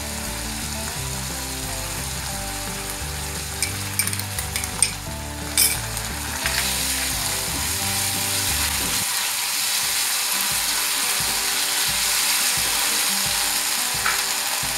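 Onion, capsicum and green chillies sizzling in a hot steel kadhai, freshly sauced with soy and chilli sauce, while a spatula scrapes and tosses them against the pan. The sizzle grows louder about six seconds in, and in the second half the spatula goes in steady, even strokes.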